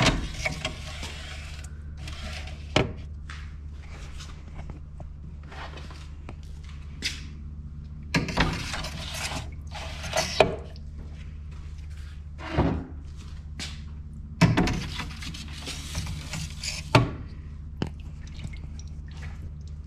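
Metal trays being slid onto the shelf rack of a Harvest Right freeze dryer: scattered clunks and scrapes of metal on metal, a few seconds apart, over a steady low hum.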